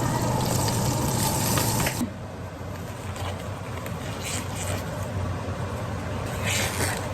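Liquid running, which stops abruptly about two seconds in; a quieter low steady hum remains.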